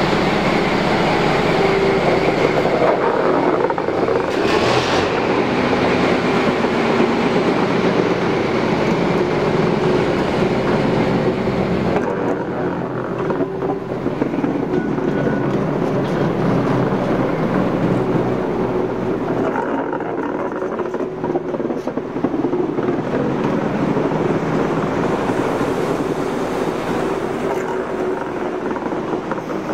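The 1935 Red Lightning Train's Frichs diesel engines running as the train rolls slowly past, with its wheels on the rails. A brief burst of higher noise comes about five seconds in.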